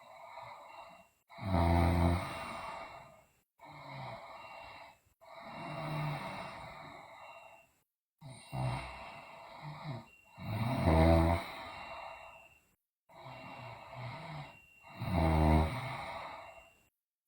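A sleeping girl snoring loudly in a slow, regular rhythm: four loud snores about every four to five seconds, each with a softer breath between.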